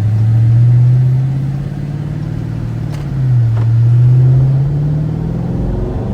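Car engine pulling under acceleration: its note climbs, drops at a gear change about three and a half seconds in, then climbs again.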